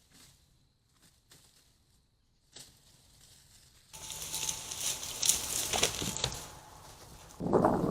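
A deer moving through dry leaves: faint at first, then crackling and rustling starts about four seconds in, and a louder scuffle begins near the end.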